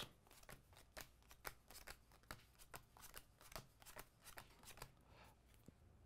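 Playing cards dealt off a deck one at a time: a run of faint, quick card flicks, about three a second, stopping near the end.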